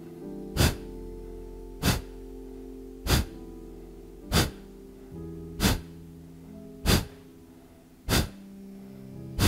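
Kapalbhati breathing: short, sharp, forceful exhalations through the nose, evenly paced at about one every second and a quarter, eight in all, over soft background music with sustained low notes.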